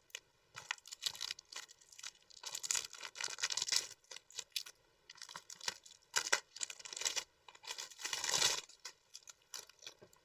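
Cellophane shrink-wrap being torn and crinkled off a Blu-ray package in several irregular bursts of crackling.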